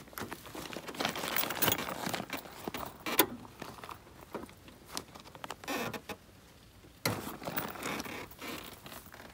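Close, irregular rustling and scraping with many small clicks and crackles, like hands working through gear or vegetation. It goes quiet briefly about six seconds in, then the rustling resumes.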